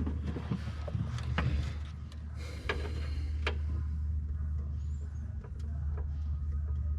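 A steady low hum with scattered light clicks and taps from wires and hand tools being handled during car wiring work.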